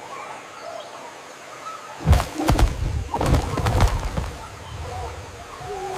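A loud flurry of rustling, flapping noise starting about two seconds in and lasting about two seconds, over faint bird chirps.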